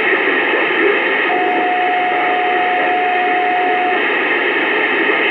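Steady hiss on a narrow, telephone-like audio line. A single steady tone comes in about a second in and cuts off after roughly two and a half seconds.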